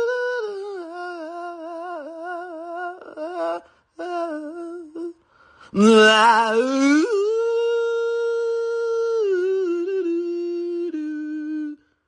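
Arctic wolf howling: a long held note that wavers and drops lower, a few shorter notes, then after a brief pause a new howl that swoops up into a long steady note and steps down before stopping just before the end.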